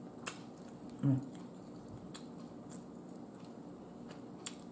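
Close mouth sounds of someone eating barbecued ribs by hand: a few sharp wet smacks and clicks from chewing and licking sauce off the fingers, with a short "mm" of the voice about a second in.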